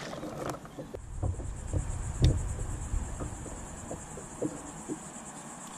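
Steady high-pitched insect chorus with a fast pulsing buzz. Over it come scattered light knocks from handling gear, low rumble in the first few seconds, and one sharp thump a little over two seconds in, the loudest sound.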